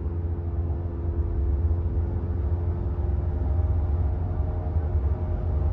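2019 Subaru WRX STI at highway speed: steady low road rumble with a buzzing drone of several steady tones above it. The owner takes the drone for a wheel bearing, most likely a damaged one at the rear.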